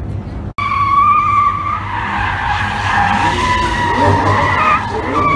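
Car tyres squealing in a burnout: a loud, wavering squeal as the rear wheels spin on asphalt, throwing off tyre smoke, with the car's engine running underneath.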